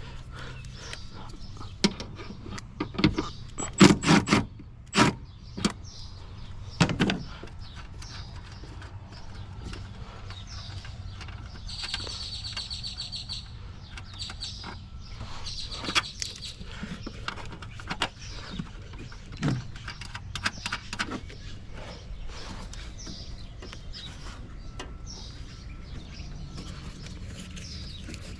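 Scattered clicks, knocks and clatters of hands working wiring connectors, clips and parts on a truck, loudest in the first several seconds. A short, fast rattling ratchet-like run comes about twelve seconds in, over a steady low hum.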